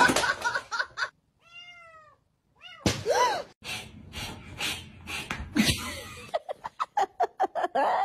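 Domestic cat meowing: a quick run of four short meows, then a single louder one, among knocks and clicks, with a fast string of short sounds near the end.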